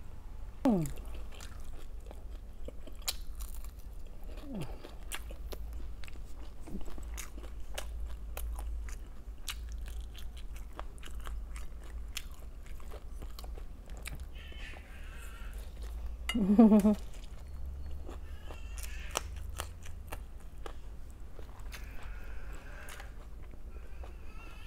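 Close-miked eating: a person biting, chewing and crunching crisp fried food, with many small crunches and mouth clicks over a steady low hum. A few short vocal murmurs come through, the loudest about two-thirds of the way in.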